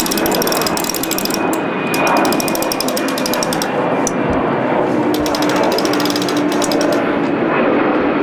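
Sailboat winch being cranked by hand under load, its pawls clicking rapidly and without a break, as a crew member is hoisted up the mast in a bosun's chair.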